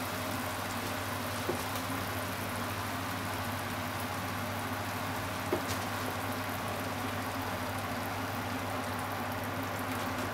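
Carbonara cream sauce with bacon and sliced onion simmering in a frying pan: a steady bubbling hiss, with a couple of small pops about one and a half and five and a half seconds in.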